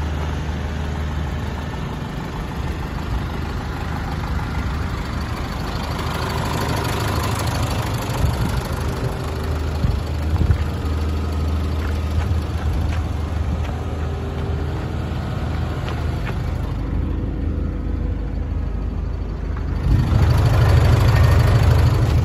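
Mitsubishi Canter's 4D33 four-cylinder diesel engine idling steadily. It gets louder and deeper near the end as the microphone comes down close to the exhaust pipe.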